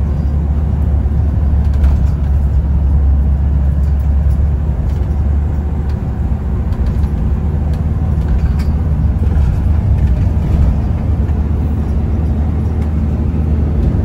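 Car driving along: a steady low rumble of engine and road noise.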